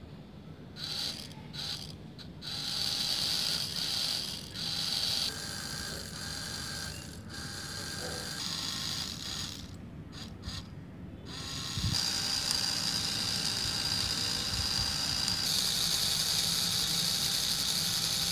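Small electric motors and gears of a miniature model tractor and belt-driven toy chaff cutter whirring with a gear rattle. A high whine grows louder and steadier about twelve seconds in.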